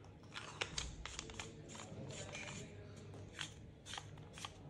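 Faint, irregular clicks and scrapes of a crossbow's vertical foregrip being screwed by hand onto its threaded mount.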